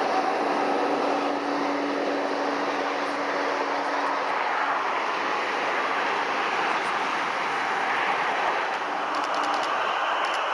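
Steady distant roar of jet engines and road traffic, with a low hum that fades out about four seconds in.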